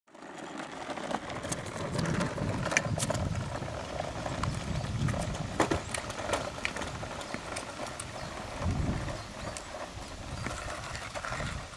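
Plastic wheels of a CAT ride-on toy dump truck rolling over rough pavement as it is pushed, with a low rumble and scattered clicks and knocks.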